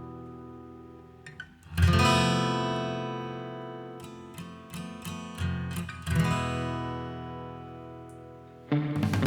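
Background music: acoustic guitar strumming chords that ring out and fade, with a strong strum about two seconds in and another about six seconds in.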